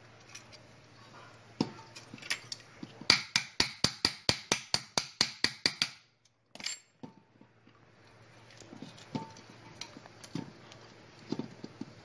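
Quick run of sharp metallic taps, about five a second for some three seconds, as the brake shaft is tapped down onto the spin-dryer motor's shaft of a twin-tub washing machine until it sits flush with the brake. Later, scattered light clinks of small metal parts being handled.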